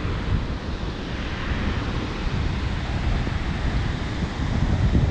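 Glacial meltwater stream rushing through a narrow rock channel: a steady whitewater rush. Wind buffets the microphone underneath it.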